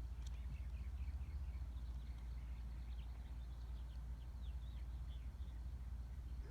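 Outdoor ambience: small birds chirping over and over in short falling notes, over a steady low rumble.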